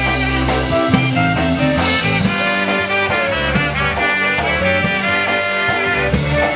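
Live polka band playing an instrumental passage: trumpet and clarinet play a quick melody over a moving bass line and a steady drum beat.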